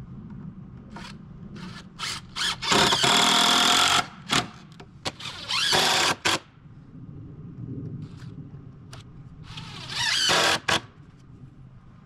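Cordless power driver sinking screws into wooden deck boards in three main runs, the longest and loudest about three seconds in, another near six seconds and one near ten seconds, with short trigger blips between them.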